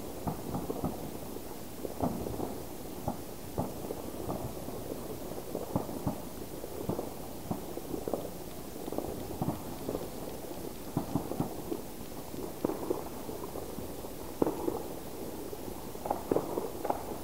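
Fireworks and firecrackers going off all around, heard as scattered, muffled pops and bangs at an irregular pace, at times a few a second.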